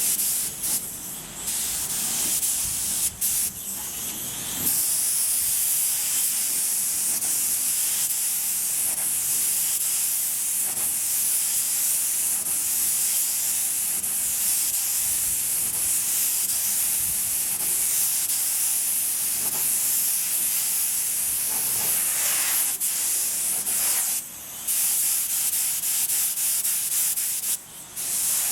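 Compressed-air paint spray gun spraying primer onto car body panels, a steady high hiss. It comes in short spurts at first, then runs almost continuously, with the trigger let off briefly twice near the end.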